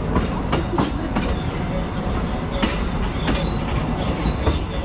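Narrow-gauge tourist train running on the track: a steady rumble with sharp, irregular clicks and knocks from the wheels passing over the rails.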